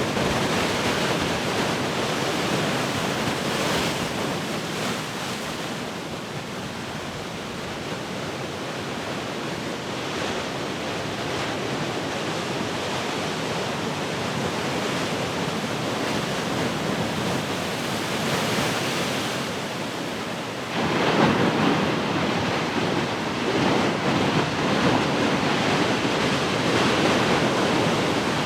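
Large ocean waves breaking and washing on the shore, with wind. The surf eases a little through the middle, then a big wave crashes about two-thirds of the way through and the roar stays louder afterwards.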